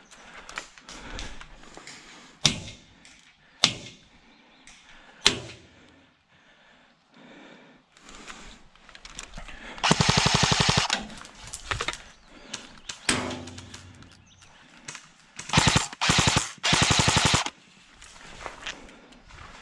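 Airsoft electric rifle firing on full auto: a burst of about a second near the middle, then two or three shorter bursts a few seconds later. A few single sharp snaps come in the first few seconds.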